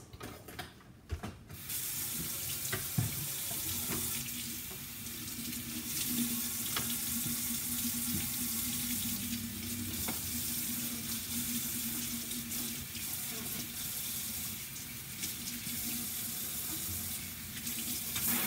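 Kitchen faucet running water into the sink while a white plastic container is rinsed under it. The water runs steadily after a brief clatter of handling at the start, with a faint steady low hum under it.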